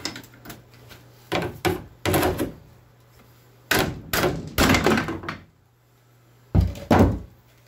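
Metal parts being handled at a UTV's steering shaft and steering box: a string of dull thunks and knocks in small clusters, with two heavy thunks near the end.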